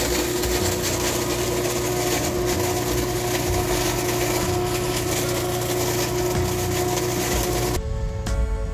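Motorized leaf vacuum running at a steady speed, a constant whine over a loud rushing hiss as its wide hose nozzle takes in fallen leaves. It cuts off suddenly near the end and music follows.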